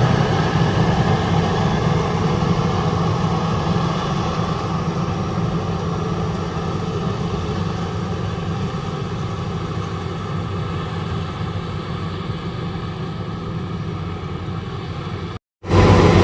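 Combine harvester engine running steadily with a low hum, slowly getting quieter. Near the end the sound cuts out for about half a second and comes back louder.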